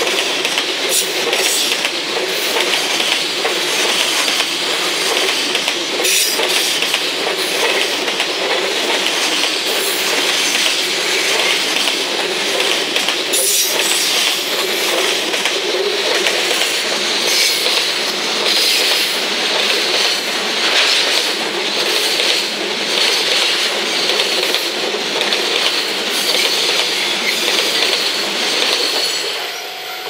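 Loaded container wagons of a long JR Freight train rolling past close by, their steel wheels clattering over the rail joints with some wheel squeal. The noise falls away near the end as the last wagon passes.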